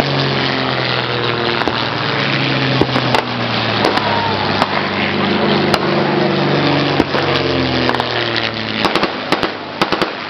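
Blank gunfire during a staged battle: scattered single shots, bunching into a quick run of shots near the end, over an engine that rises and falls in pitch.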